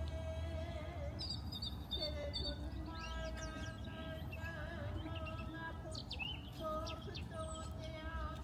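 A woman's karanga, the ceremonial welcome call of a pōwhiri: long, high notes held one after another, each wavering at its end. Birds chirp over it, more often in the second half.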